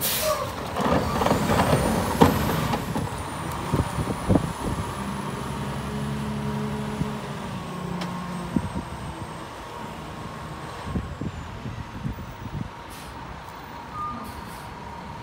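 Rear-loader garbage truck at work: a cart clattering and banging against the hopper as it is tipped, with the sharpest bang about two seconds in, then the truck's diesel engine running as it pulls away, gradually fading.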